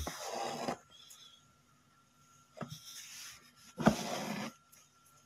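Embroidery thread being pulled through cloth with a needle: three short rustling pulls, the last starting with a light click.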